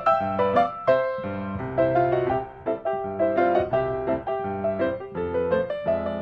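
Background music: a bright piano or electric-piano melody with quick, evenly paced notes and a bass line.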